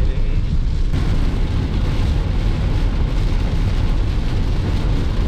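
Steady low road rumble of a Tata Nexon driving, joined about a second in by a broad hiss of rain and tyres on a wet road.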